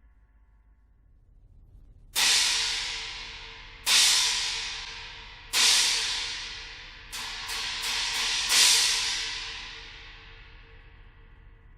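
Kingdo cymbal struck three times, about a second and a half apart, each hit ringing with a bright shimmering wash and fading. Then come a few lighter quick hits, building to a final loud crash that rings out and slowly dies away.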